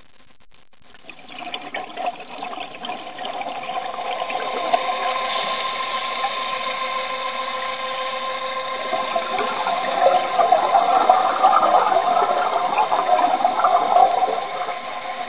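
Scuba regulator exhaust bubbles gurgling and rushing, heard underwater. They start about a second in and grow louder from about ten seconds in, over a steady mechanical hum.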